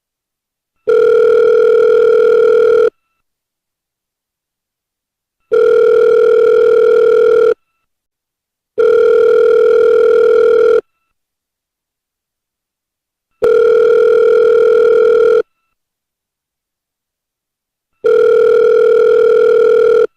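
Telephone ringback tone of an outgoing call: a steady mid-pitched tone sounding for about two seconds, five times, with silent gaps of unequal length between the rings.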